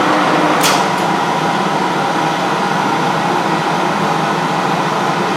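Hendey lathe and its drive motor running steadily, a continuous mechanical hum with a steady tone; a single click sounds about two-thirds of a second in.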